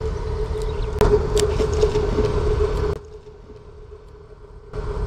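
A small engine running steadily: a low rumble with a steady hum over it, dropping away sharply for about two seconds in the middle and then coming back.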